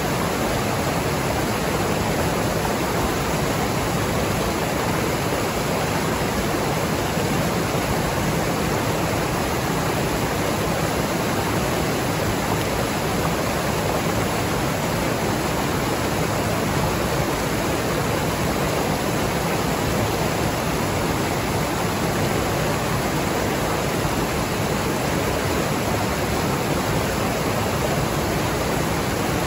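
Rushing stream water, a loud, even wash of noise that holds steady throughout.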